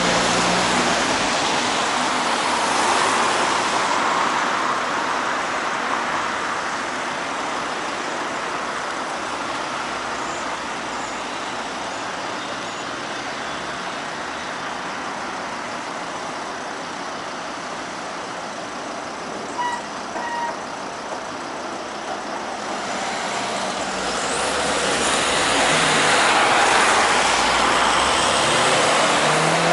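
Road traffic passing a signalled crossing: a steady rush of vehicles driving by, louder in the first few seconds and again from about 24 seconds on, quieter in between. A couple of brief high blips come about two-thirds of the way through.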